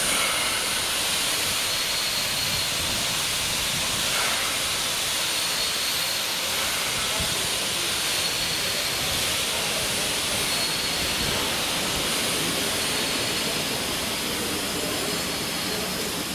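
Steady hiss of escaping steam from NSWGR 30 class 4-6-0 steam locomotive 3016 standing at the turntable.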